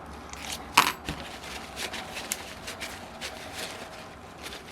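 Light metallic clicks and clinks from handling the parts of a disassembled engine, with one sharper clink just under a second in.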